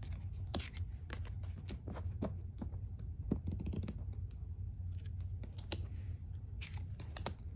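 Tarot cards being drawn and laid onto their stacks on a tabletop: a run of light clicks and taps of card stock, with a brief sliding rustle near the end, over a low steady hum.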